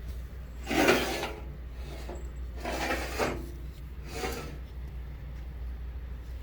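Handling noise: three short rubbing, scraping sounds as the tool post grinder is shifted and handled on a surface, over a steady low hum; the motor is not running.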